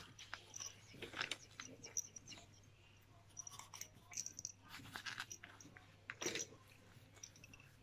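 Faint, irregular clicks and taps of a hard plastic baby teether-rattle being handled and gnawed by a toddler.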